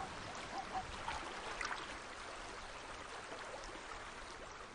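Faint river ambience: a soft, even hiss of water with a few small ticks in the first couple of seconds.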